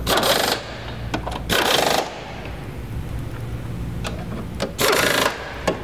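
Pneumatic impact wrench hammering bolts down, in three short bursts of about half a second each.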